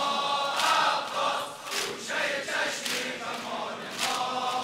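Large crowd of men chanting a Shia mourning noha together, with a steady beat of chest-beating slaps about once a second.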